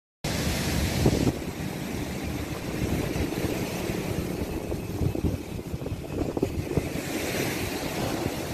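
Sea waves surging and breaking against a rock seawall, with wind buffeting the microphone in an uneven low rumble.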